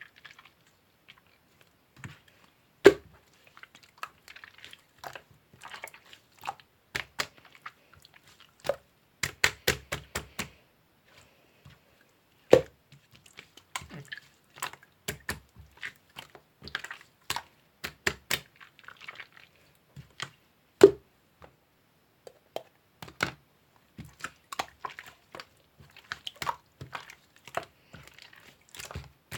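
Irregular light clicks and taps, with three louder knocks spread through.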